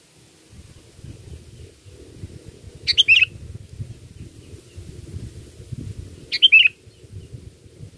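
Sooty-headed bulbul (kutilang) calling: two short, bubbly call phrases, one about three seconds in and another a little after six seconds, over a faint low background rumble.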